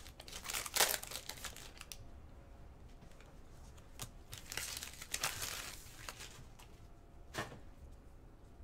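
Sports card pack wrappers being torn open and crinkled: a few bursts of crackling rustle, the first in the opening second or so and another around the middle, with one short sharp rip near the end.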